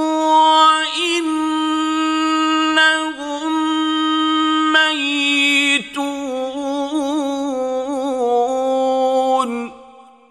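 A man's voice reciting the Quran in a slow, melodic chant, holding long notes with wavering ornaments. The voice stops near the end and fades out in reverberation.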